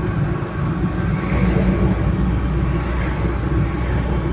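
UAZ off-roader driving, its engine and road noise heard from inside the cabin as a steady low drone.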